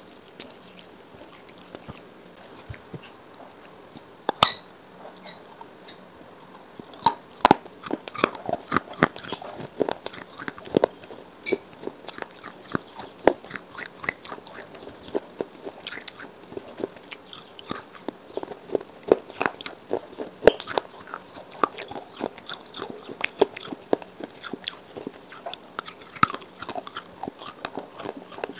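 Close-miked biting and chewing of fired clay pottery pieces: sharp crunches and crackles, a few at first, then a dense run of crunching from about seven seconds in.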